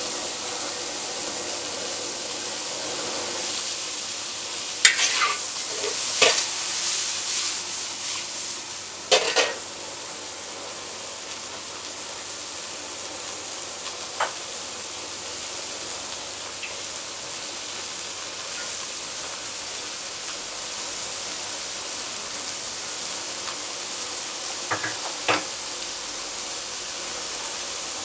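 Vegetables sizzling in a hand-hammered steel wok over a gas burner, a steady frying hiss throughout. Metal spatulas scrape and clatter against the wok as it is stirred, several sharp strokes in the first third and a couple more near the end.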